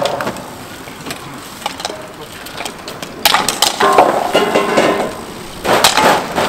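Hardcourt bike polo play: sharp knocks of mallets and bikes clashing around the goal, with loud shouting voices in the second half.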